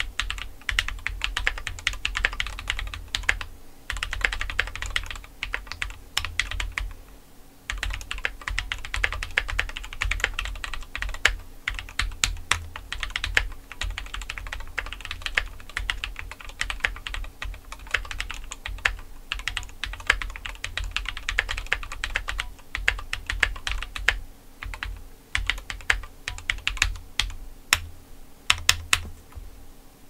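Continuous fast typing on a Keychron Q3 mechanical keyboard, a gasket-mounted aluminium TKL fitted with lubed JWK Ultimate Black linear switches and SA-profile PBT keycaps. The keystrokes run in quick runs, with brief pauses about four and seven seconds in.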